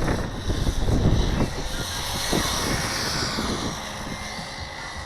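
Turnigy electric rally RC cars running, their motors whining high; the whine swells and fades as a car passes, about two to four seconds in. There is a low rumble in the first second and a half.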